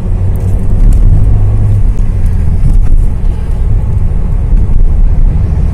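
Steady low rumble of a car driving along a highway, heard from inside the cabin: engine and road noise.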